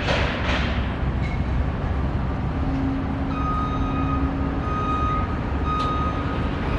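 A vehicle's reversing alarm begins beeping about halfway through, evenly at about one beep a second, over a steady low rumble of engines and street traffic.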